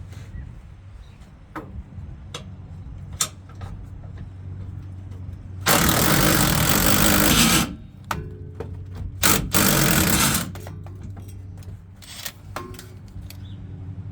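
Power tool run in two loud bursts, the first about six seconds in for roughly two seconds and the second a little over a second long about nine seconds in. Light clinks and knocks of metal parts come before and after.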